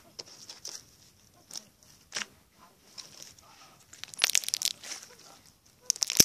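Slime squeezed and pressed between the hands close to the microphone, crackling and popping in scattered bursts, densest about four seconds in and again near the end.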